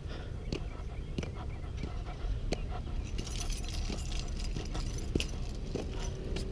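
Keys on a car key ring jangling in hand, a light click about every two-thirds of a second, over a steady low rumble in the background.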